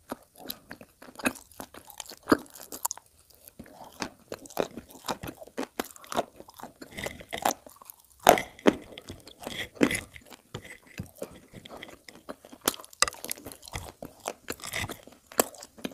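Close-up chewing and crunching of crushed chalk: a dense, irregular crackle of brittle pieces being bitten and ground between the teeth, with the loudest crunches about eight and ten seconds in.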